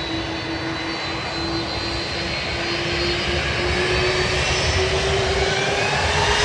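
Airbus A330 twin jet engines during takeoff: a steady rushing roar with a whine that slowly rises in pitch as the sound grows louder.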